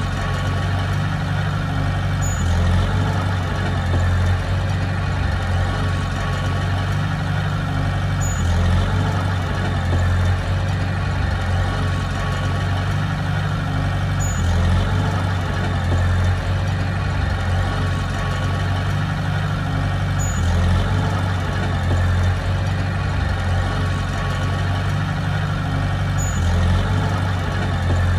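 Heavy diesel engine of earthmoving machinery running steadily, with a faint short high chirp and a slight swell about every six seconds.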